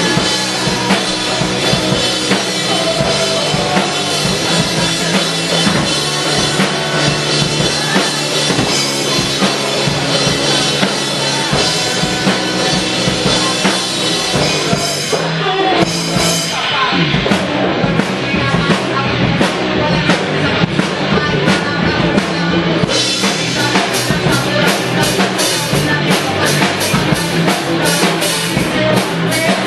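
Rock band playing at a sound check, with a drum kit driving the beat. About halfway through, the high cymbal wash drops away to a sparser stretch of separate drum hits, and the full band comes back in several seconds later.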